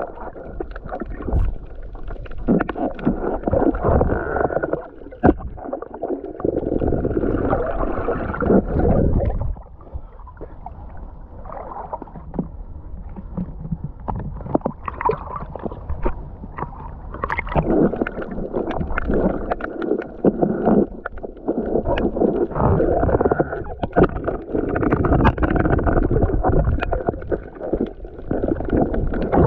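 Seawater sloshing and gurgling close to the microphone, with scattered sharp knocks and clicks, rising and falling in waves.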